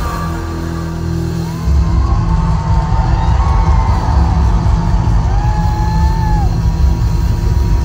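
Live rock band playing loudly through an arena PA, heard on a phone microphone, with a heavy bass drone that swells about a second and a half in. Drawn-out whoops from the crowd ride over the music.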